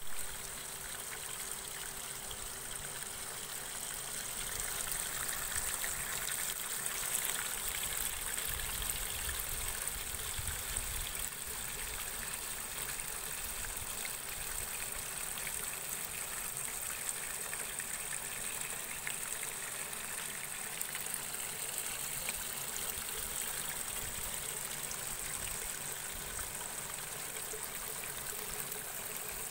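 Nutrient water trickling steadily out of the ends of hydroponic lettuce channels and splashing into the return gutter below, with a steady high-pitched hiss over it.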